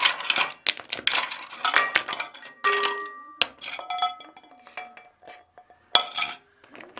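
Rough stone pieces being handled and set down, knocking and clinking against each other in a series of sharp hits, some with a brief ringing tone.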